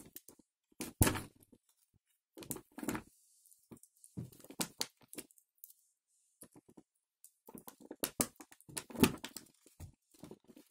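Clear plastic blister packaging being handled while a toy helicopter is worked out of its tray: irregular clicks, knocks and crinkles of stiff plastic, with a loud knock about a second in and a quick run of them near the end.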